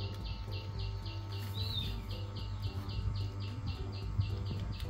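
A high chirp repeated evenly and rapidly, about four to five times a second, from a bird or insect in the surroundings, with one short rising-and-falling chirp about a second and a half in, over a steady low hum.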